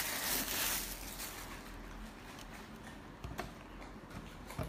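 Thin plastic bag crinkling as a lamp-shaped camera is pulled out of it, dying away after about a second and a half. A couple of light knocks follow as the unit is set down and handled on the desk.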